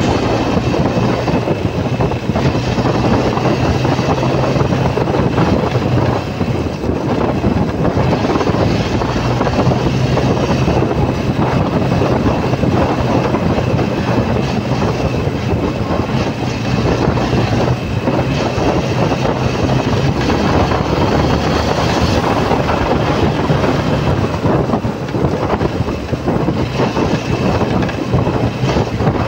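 Motorcycle in motion: a loud, steady rush of wind and road noise over the microphone, with the engine's low hum underneath that fades out briefly twice.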